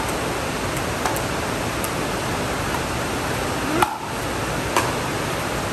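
Pickleball rally: sharp pops of paddles striking the plastic ball several times, the loudest about four seconds in, over a steady hiss.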